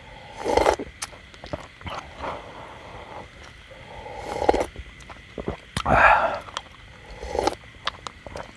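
A person slurping hot hotpot broth from a stainless steel bowl: about five loud slurps and swallows, a second or two apart, the strongest about six seconds in.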